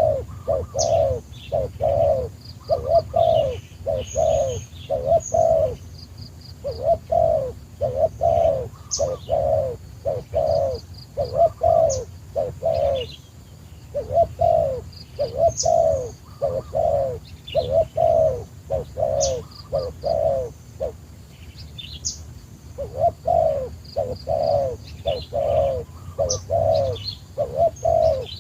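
A dove cooing over and over, about two coos a second in long phrases with brief pauses between them. Small birds chirp high above it.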